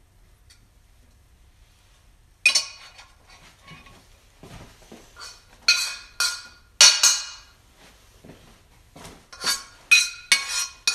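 Metal frying pan and kitchen utensils clanking and clattering: a run of sharp, ringing knocks starting a couple of seconds in, about eight in all, several close together near the end.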